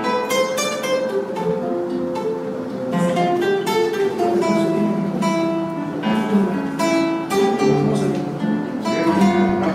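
Acoustic guitar played live, a steady run of plucked and strummed notes.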